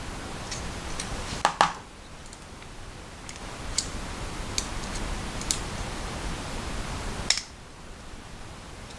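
Small clicks and taps of a screwdriver bit and knife parts being handled while the folding knife's Torx body screws are worked out: a sharp double click about a second and a half in, a few lighter ticks, and another click near the end, over a steady hiss.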